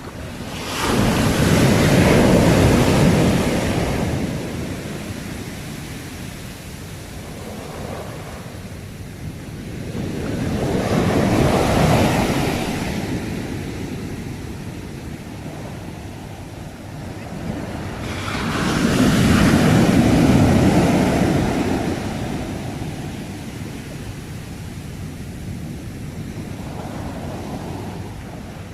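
Sea waves breaking three times, each surge of surf swelling up and washing away over a few seconds, with a steady wash of water between.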